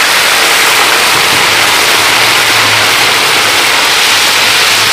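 A little water poured into golden-browned onions in hot desi ghee, sizzling with a loud, steady hiss. The water is added to keep the browned onions from burning.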